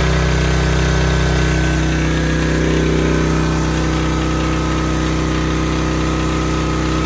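Older Briggs & Stratton single-cylinder engine on a Generac portable generator, fitted with a propane conversion kit, running steadily at an even speed.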